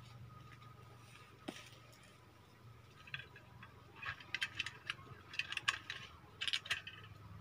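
Metallic clinking and rattling of wire snare loops on a wooden trap board as they are handled and set. There are a few clicks about three seconds in, then quick clusters of clicks until near the end.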